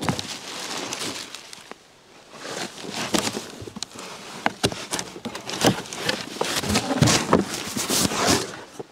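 A cardboard shipping box being handled and opened, with irregular rustling, scraping and knocks of the cardboard, and a leather jacket rustling as it is pulled out.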